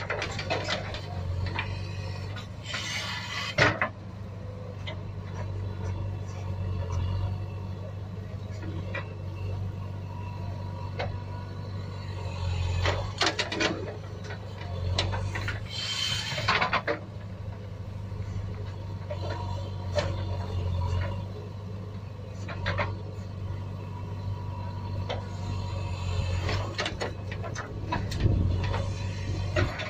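Plastic toy front loader scraping into a sand pile and tipping sand into a plastic toy dump truck: gritty scrapes, sand pouring and light plastic knocks several times, over a steady low hum.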